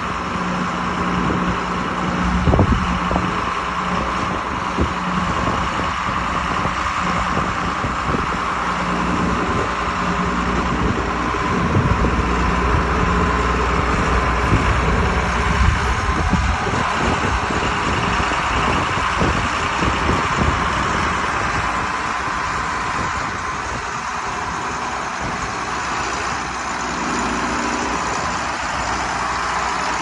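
John Deere 8450 articulated tractor's six-cylinder turbocharged diesel engine running as the tractor drives. It settles to a steadier idle over the second half.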